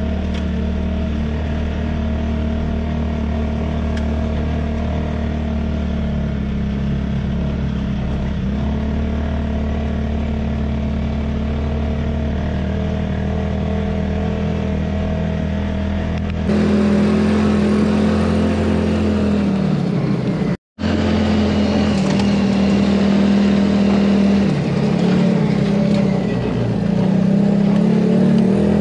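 Off-road vehicle engine running steadily as it drives along a rough dirt track, heard from inside the cabin. A little over halfway through, the sound turns suddenly louder and brighter. It cuts out for a moment soon after, and the engine note dips briefly twice.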